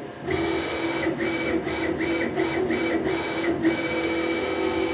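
Z-axis drive motor of a CNC-converted Grizzly G0704 mill whining steadily as it jogs the head at a 180 inches-per-minute rapid, broken by several brief pauses where the motion stops and starts again.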